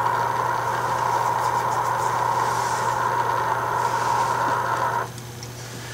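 Steady hiss of band noise from a Grundig shortwave receiver's speaker, cutting off abruptly about five seconds in. A low steady hum runs underneath.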